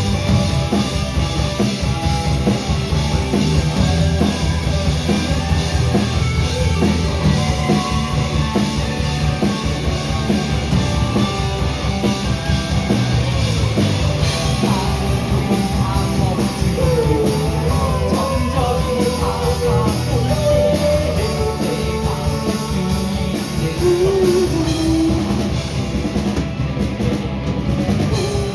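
Live rock band playing loudly, led by a drum kit and amplified instruments.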